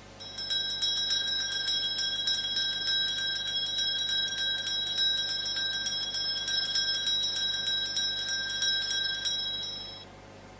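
Altar bells rung over and over in quick strokes for about ten seconds, with a high, shimmering ring, then stopping. The ringing marks the elevation of the chalice at the consecration of the Mass.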